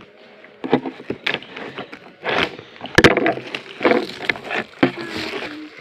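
Paper and packaging being handled and rustled, with small knocks and a sharp click about three seconds in.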